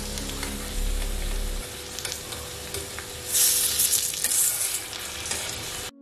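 Prawn fritters deep-frying in oil in an aluminium kadai, sizzling steadily. The sizzle flares louder from about three seconds in for a second or so, with a few sharp taps of a metal spatula against the pan.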